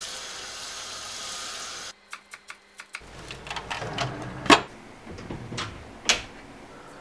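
A kitchen tap running onto a wooden cutting board in a steel sink, cutting off abruptly after about two seconds. It is followed by light clicks and the handling of a kitchen drawer being pulled open, with a sharp knock about halfway through and another near the end.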